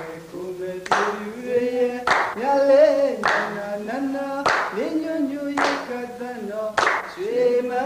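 Music: a singing voice holding and sliding between long notes, over a sharp percussive hit that comes about once every second and a bit.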